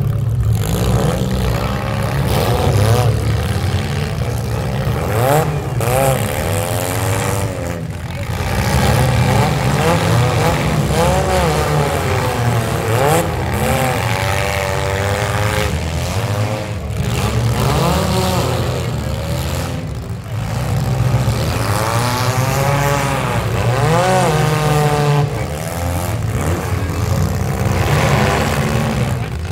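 Many midsize demolition derby cars' engines running and revving together, their pitch rising and falling over and over as the cars accelerate, push and back up.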